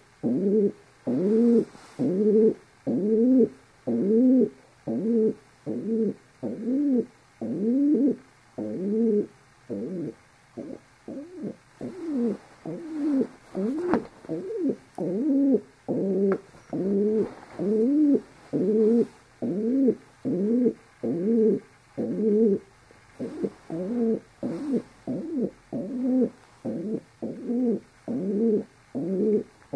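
Domestic pigeon cooing over and over, a steady run of short, even coos at about two a second.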